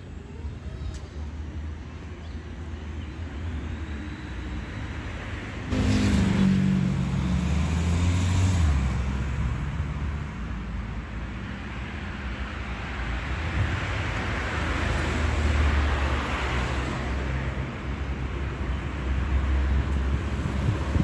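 Road traffic passing alongside: a vehicle goes by about six seconds in, its engine note sliding down as it passes, and later a car's tyre hiss swells and fades, over a steady low traffic rumble.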